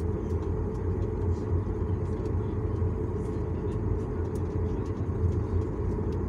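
Steady low rumble of a jet airliner taxiing, heard inside the cabin: the engines running at idle while the aircraft rolls slowly along the taxiway.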